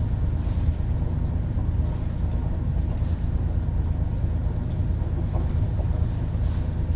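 Sailboat's auxiliary engine running steadily in reverse gear, a low even hum.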